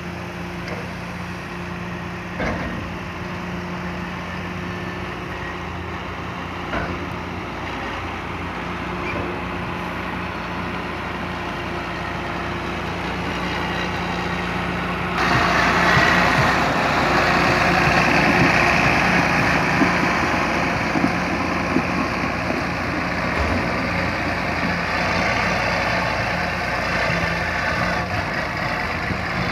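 Tractor engines running. First comes a steady engine hum with a low drone. About halfway through the sound cuts suddenly to a louder, harsher engine close by, a John Deere front-loader tractor working on a silage clamp.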